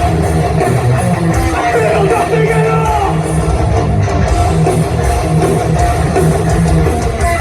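Hardcore punk band playing live at full volume: distorted electric guitars over bass and drums in a dense, unbroken wall of sound.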